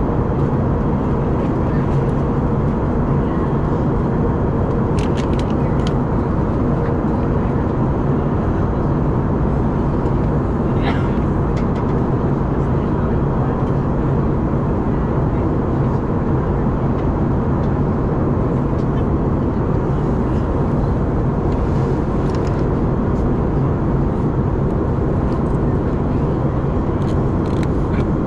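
Steady cabin drone of an Airbus A321neo airliner in descent, heard inside the cabin by the wing: jet engine and airflow noise with a low hum. A few faint clicks and one short squeak sound over it.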